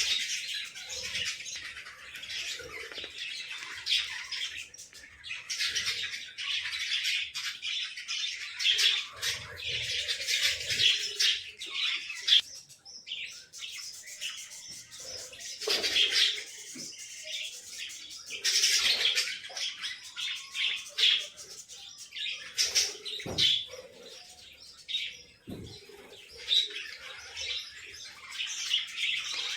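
Small cage birds chirping and chattering busily and without pause, high-pitched, with scattered sharp clicks.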